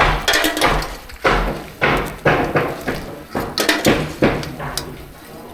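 Irregular hammering from nearby construction work: sharp knocks about twice a second, each ringing briefly.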